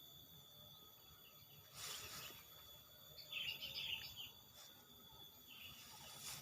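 Faint forest ambience: a bird chirps in a quick cluster of short calls about three seconds in, over a steady high-pitched hum, with two brief rustles, one about two seconds in and one near the end.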